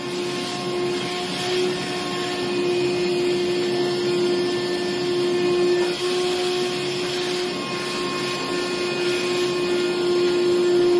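DeWalt 20-volt cordless shop vac running steadily, a motor whine over rushing air, as its hose sucks up wood and metal shavings from the floor. The sound dips briefly about six seconds in.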